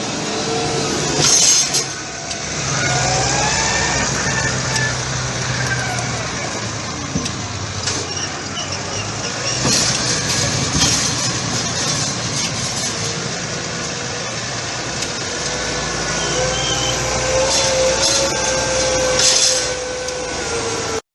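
Diesel engines of a forage harvester and tractors working a maize silage harvest, running steadily, with the engine pitch rising and falling at times.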